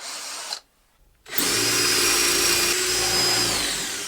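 Electric drill boring a hole in wood: it starts up about a second in, runs at a steady speed for about two seconds, then winds down with falling pitch near the end. A brief, quieter sound comes right at the start.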